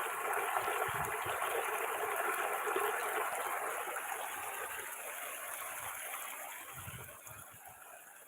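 Water rushing over a small weir, a steady wash of running water that gradually grows quieter over the second half.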